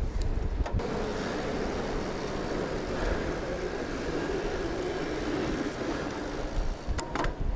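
Fat bike being ridden fast: a steady tyre hum and rumble with wind buffeting the microphone, gustier at the start and the end, and a few sharp clicks near the start and near the end.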